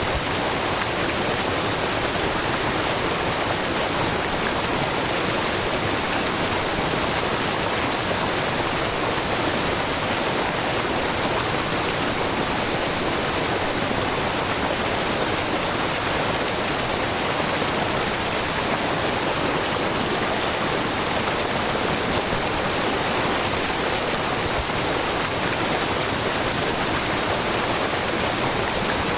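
Shiraito Falls, a wide, low waterfall of many thin threads of spring water spilling over a rock face, giving a steady, even rush of falling water.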